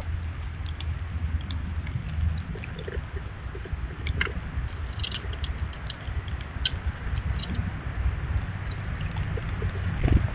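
Outdoor ambience: a steady low rumble with scattered short, high ticks and chips, and a single low thump near the end.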